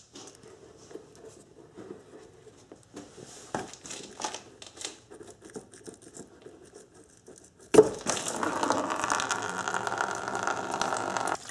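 Windshield washer fluid pouring in a steady stream out of the reservoir's pump opening into a drain pan, starting suddenly about two-thirds of the way in as the pump comes free of its grommet. Before that, faint rustling and clicking of hands working the pump and its wiring loose.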